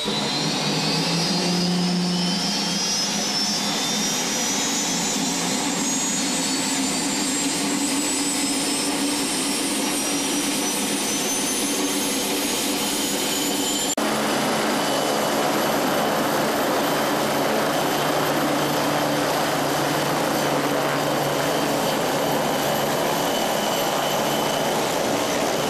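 MBB Bo 105 helicopter's twin turboshaft engines running up on the ground, a turbine whine rising steadily in pitch as the rotor speeds up. About halfway through it cuts to the helicopter airborne, with a steady turbine whine over the rotor noise.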